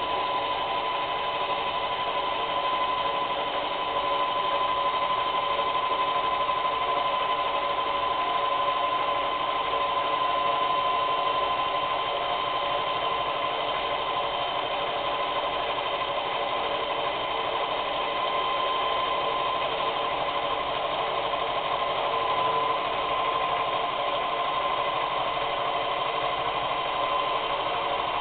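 Bailey Home Quilter longarm quilting machine running steadily at stitching speed, sewing free-motion loops through a quilt, with a steady motor whine.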